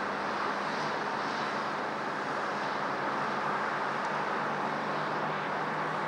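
Steady wash of distant road traffic: an even hiss with a faint low hum underneath, no single vehicle standing out.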